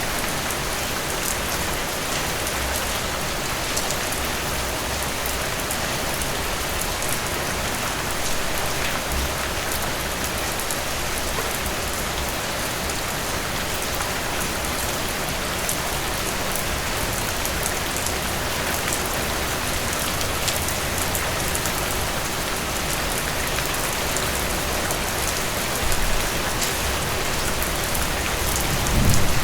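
Steady heavy rain falling on a surface, an even hiss with fine drop patter, and a brief low rumble near the end.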